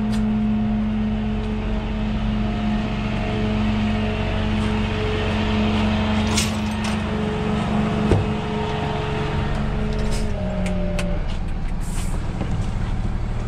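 Vehicle engine idling steadily, its pitch stepping down slightly about ten seconds in, with a few scattered clicks and a sharp knock about eight seconds in.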